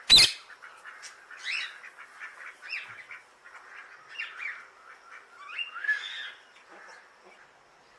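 A parrot chirping in a series of short calls, several rising in pitch, mostly between about one and a half and six and a half seconds in. A single sharp, loud click comes right at the start.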